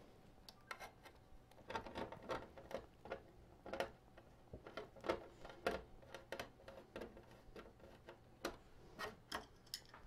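Irregular light clicks and knocks of a 2.5-inch SSD being handled and fitted into the metal drive mount of a PC case.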